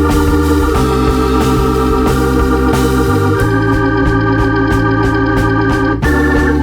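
Background music led by an electric organ playing sustained chords over a moving bass line, with light percussion ticking in the upper range.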